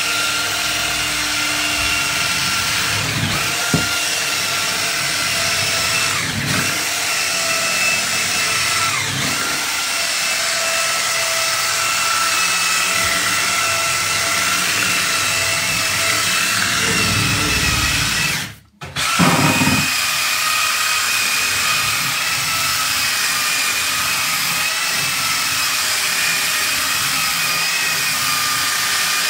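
KIMO 12V cordless drill running at a steady speed with a motor whine, spinning a scrub-brush attachment against a bathtub. It stops for a moment about eighteen seconds in, then starts up again.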